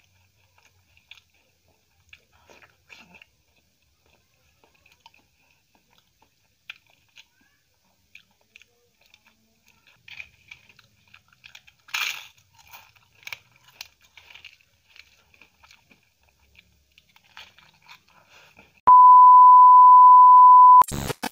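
Close-miked eating: wet clicks and chewing as rice and egg curry are mixed by hand and eaten, with a louder bite about twelve seconds in. Near the end a loud, steady test-signal beep, the TV colour-bars tone, sounds for about two seconds and breaks off into a short burst of static.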